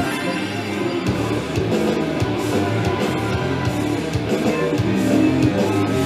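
Music led by strummed guitar, playing steadily.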